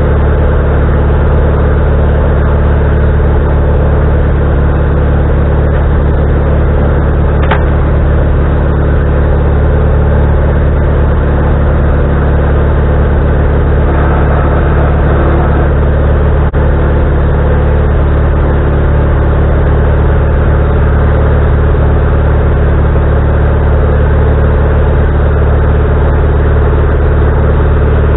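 Wood-Mizer LT40HD band sawmill's engine running steadily at constant speed, with no change in pitch.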